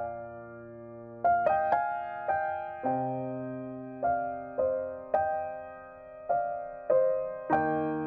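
Background piano music: slow, gentle single notes struck one after another and left to ring over held bass notes.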